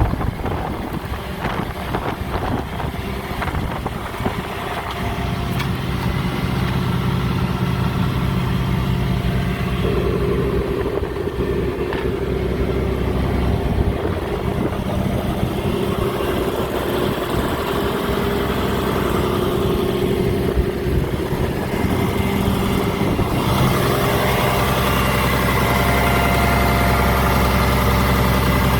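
Caterpillar 330DL excavator's diesel engine running. The first few seconds are rougher and noisier, then a steady engine note sets in about five seconds in and shifts a few times.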